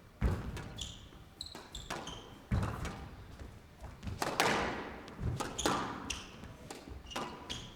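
Squash rally: the ball cracks sharply off rackets and walls again and again, with sneakers squeaking on the court floor. A louder noisy swell comes about four seconds in.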